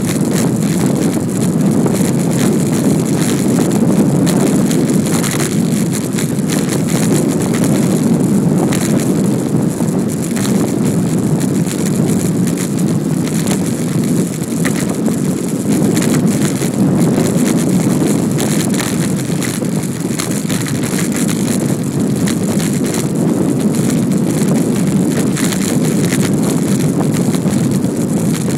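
Wind buffeting the microphone of a camera carried on a moving bicycle, heard as a steady, loud rumble without a break.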